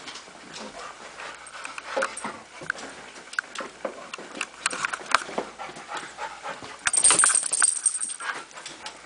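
Malamute puppy moving about, with many scattered clicks and taps and a louder breathy rush of noise about seven seconds in.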